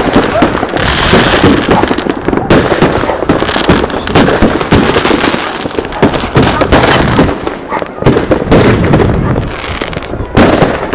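Fireworks and firecrackers going off nonstop: rapid, overlapping cracks and bangs with no break.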